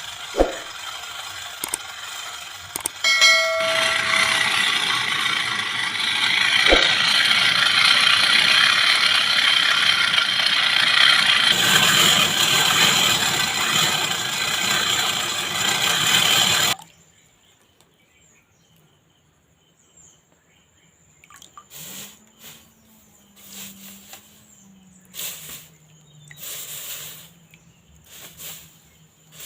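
A steady, loud rushing roar of the fire heating the repaired knife blade to harden it, with a few sharp clicks. It cuts off suddenly about seventeen seconds in, leaving much quieter scattered hissing and a low hum.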